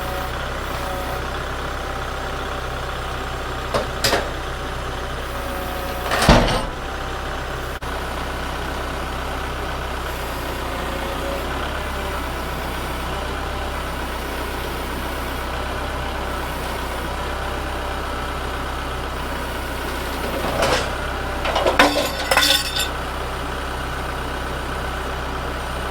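An engine idling steadily, with a few short knocks and clatters: one about four seconds in, a louder one about six seconds in, and a cluster near the end.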